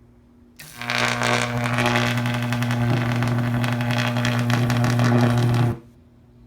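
Microwave oven transformer high-voltage arc, a spark drawn from a zapper probe, buzzing loudly with a mains-frequency hum and a crackle. It starts about half a second in, runs for about five seconds and cuts off suddenly near the end.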